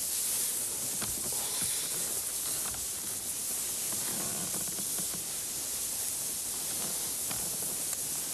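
Bedclothes rustling as a man settles into bed and draws the sheets up, over a steady hiss.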